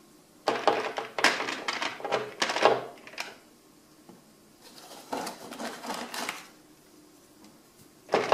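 Small decorative fireplace logs being set down and shifted by hand on a bed of loose crystal ember stones, the crystals clicking and rattling against each other. A dense clatter comes about half a second in and lasts a few seconds, softer clicks follow, and a sharp clatter comes right at the end.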